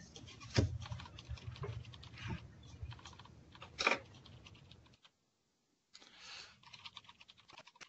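Computer keyboard being typed on in quick, uneven clicks, heard over a web-conference call, with one louder click near four seconds. The audio drops out completely for about a second around the five-second mark, then sparser clicking resumes.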